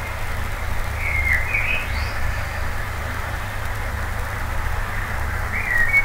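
A songbird singing short whistled phrases with quick rising and falling glides, about a second in and again near the end, over a steady low rumble.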